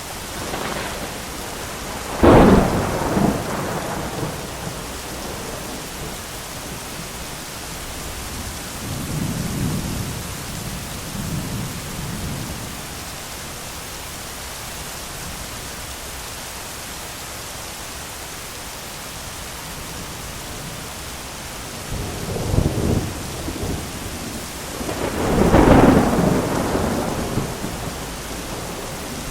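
Thunderstorm: steady heavy rain hissing, with a sharp thunderclap about two seconds in, low rolling rumbles in the middle, and two more thunderclaps near the end, the last the loudest and longest.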